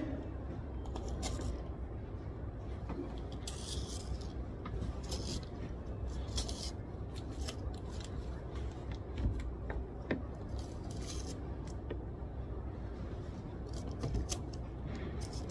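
Library background noise: a steady low hum with scattered short scrapes and rustles of pen and paper at a study desk.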